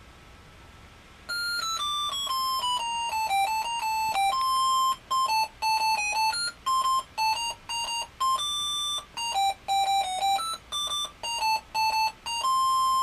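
An Arduino Mega playing an RTTTL ringtone tune as electronic beeps, one note at a time. It starts about a second in with a quick falling run, then goes on to a melody of short notes and a few longer held ones.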